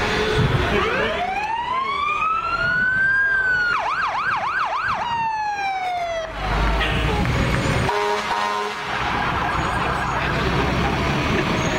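A fire truck's siren winds up in a rising wail, switches for about a second to a fast warbling yelp, then winds down. In the second half, once the siren has died away, the low rumble of the passing fire trucks' engines takes over.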